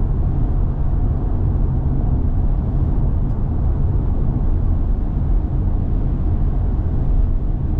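Steady low rumble of road and wind noise inside the cabin of an electric Tesla Model Y driving on the highway on a very windy day, with no engine sound.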